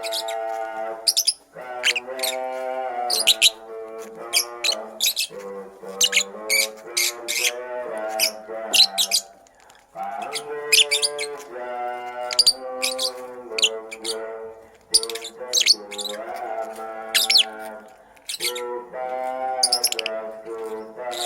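Lovebird chirping in many short, sharp chirps over background music of sustained melodic notes that pause briefly between phrases.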